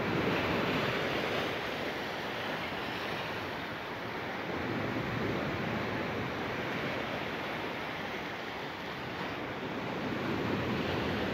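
Sea surf washing steadily, with wind buffeting the microphone; the wash swells about a second in and again near the end.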